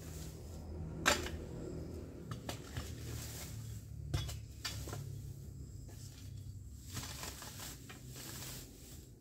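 Weeds being cleared with a hoe and by hand: a series of short crackles, snaps and rustles of stems and leaves, with one louder knock about a second in, over a low steady rumble.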